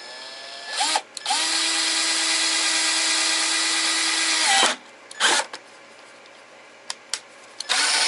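Power drill boring a hole through a fridge's battery-compartment door: the motor spins up quickly and runs steadily for about four seconds, gives a short burst, then runs again near the end.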